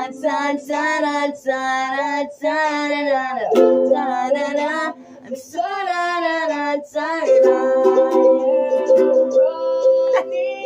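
A woman singing to her own strummed ukulele, her voice wavering and bending in pitch; about seven seconds in the voice gives way to steady ukulele chords.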